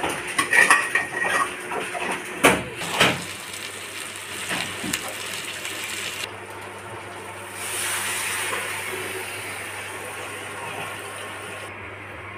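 A metal spatula scraping and knocking against a steel kadai as crab pieces are stirred in hot oil, with several sharp clinks in the first three seconds. After that comes a steady hiss of the crabs frying.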